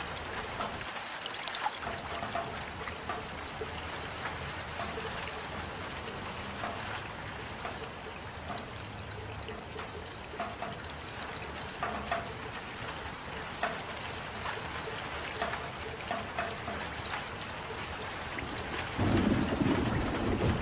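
Steady rain falling, with distinct drops ticking now and then over the even hiss. Near the end a louder low rumble comes in.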